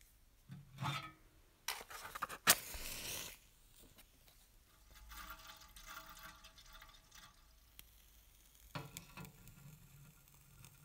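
Handling sounds on a small toy steam engine. A sharp click with a short rush of noise comes about two and a half seconds in. Then water is squirted from a syringe into the small brass boiler through its filler hole, and near the end there is a knock as the burner is pushed into the firebox.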